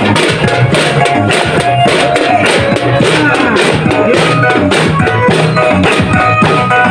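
Street drum band of small marching drums beaten with wooden sticks in a steady rhythm, playing along with music that carries a melody.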